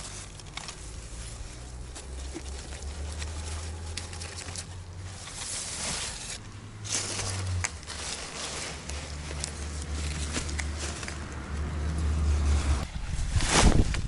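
Rustling and crackling of freshly dug horseradish plants, leaves and roots, being handled, with scattered small clicks over a steady low rumble. A louder rustle comes near the end.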